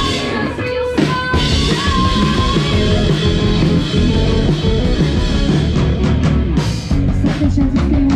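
Live rock band playing through a PA: a woman singing over electric guitars, bass guitar and drums, with the singing heard mainly in the first couple of seconds.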